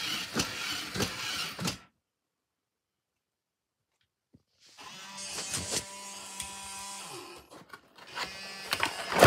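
A robot puppy toy's small geared motors whirring, with plastic clicks. The sound cuts to dead silence a little under two seconds in. About five seconds in, a steadier whirring with a few held tones and scattered clicks starts again.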